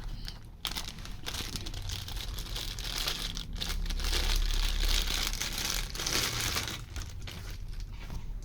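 Packaging being crinkled and handled, a dense run of crackles that is loudest through the middle.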